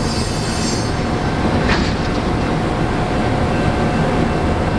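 Enclosed Amtrak Auto Train car carriers rolling slowly by on the rails: a steady heavy rumble of wheels and car bodies, with a faint high wheel whine in the first second and one short screech about a second and a half in.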